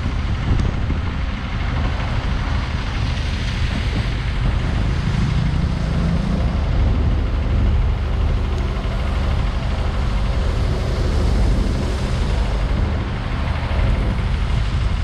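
Diesel engine of heavy earthmoving machinery running steadily under load.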